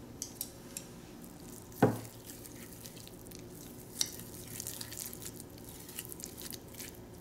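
Chopsticks stirring thick sesame paste with sesame oil in a ceramic bowl: soft wet squishing with light clicks of the chopsticks against the bowl, and a sharper knock about two seconds in.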